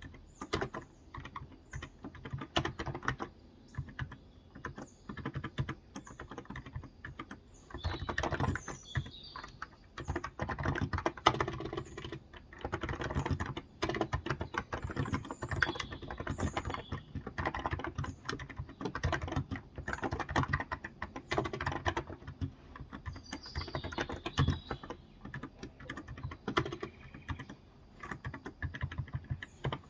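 Typing on a Cox Endeavor electro-capacitive (Topre-style) tenkeyless keyboard with 35 g keys: soft keystrokes in irregular bursts with brief pauses. Small birds chirp faintly now and then behind the typing.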